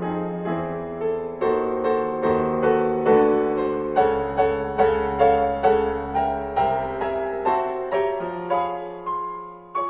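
Piano music: a slow melody of single struck notes, about two a second, over held low notes. It dies away near the end.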